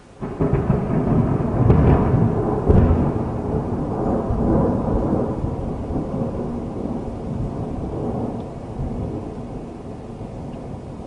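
A thunderclap that breaks suddenly, with its loudest cracks about two and three seconds in, then a long low rumble that slowly fades.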